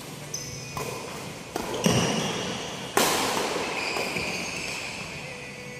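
Badminton doubles rally on a wooden indoor court: sharp racket strikes on the shuttlecock, heavy footfalls and high sneaker squeaks, all echoing in the hall. The loudest crack comes about three seconds in.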